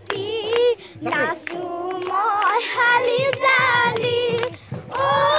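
A group of young girls singing a Bihu song together, with sharp hand claps keeping time.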